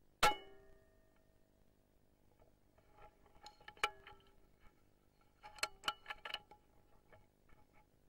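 A single sharp rifle shot with a brief ring, then two runs of small metallic clicks and clinks a few seconds later.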